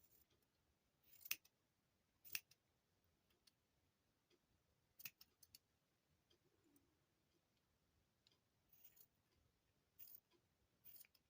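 Scissors snipping through yarn ends while trimming a yarn tail to an even length: about six separate short snips with pauses between them.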